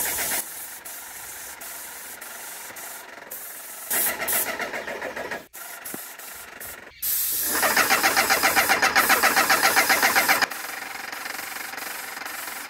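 Graco GX19 airless paint sprayer's pump running in short runs of rapid, even pulsing as it cuts in and out, the longest and loudest run in the second half, with a quieter steady hiss in between.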